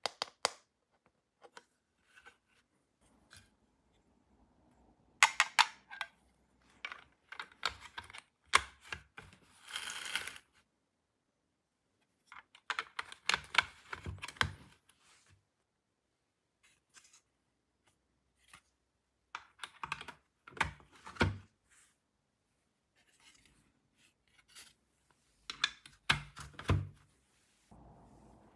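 Small hard plastic toy pieces from a toy doctor and dentist play kit clicking and clattering as they are unpacked and handled, in several short clusters with quiet pauses between. About ten seconds in there is a brief rustle of packaging.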